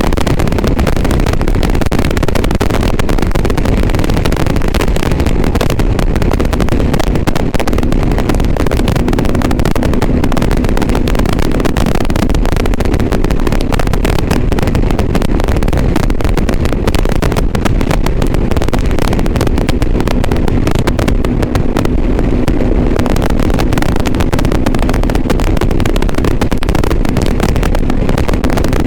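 A motorcycle on the move, heard through a GoPro Hero 7 Black's external microphone as a loud, steady rush of noise with constant crackling over it: the bad, distorted recording sound the camera setup gives. A faint steady engine hum shows through at times.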